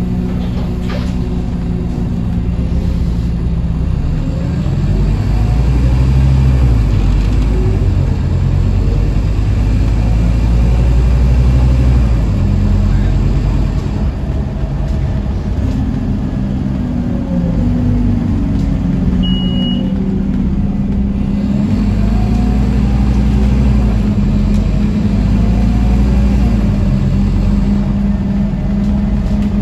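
Scania N230UD OmniCity double-decker's five-cylinder diesel engine heard from inside the lower saloon, running under way with the engine note stepping up and down through gear changes over a steady road rumble. A short high beep sounds about two-thirds of the way through.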